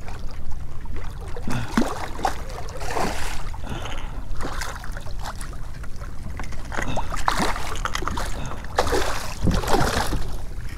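Water splashing in irregular bursts as a hooked red drum thrashes at the surface beside a kayak and is scooped with a landing net, the biggest splashes near the end.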